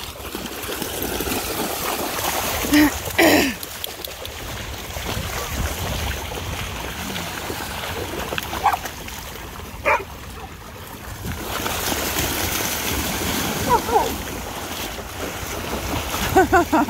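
A pack of dogs running and splashing through shallow seawater: a steady wash of churning, splashing water, with a few brief vocal sounds breaking in over it now and then.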